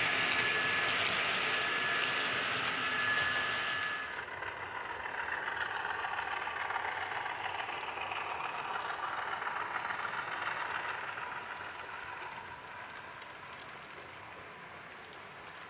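Model railway trains running on the track: a model freight train of car-carrier wagons rolls by with a steady high whine, then about four seconds in the sound changes to a model Class 50 diesel locomotive hauling coaches past, its running sound fading toward the end.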